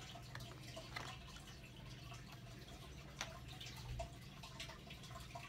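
A few faint clicks and light handling noises from a plastic Blu-ray case being handled, over a low steady hum.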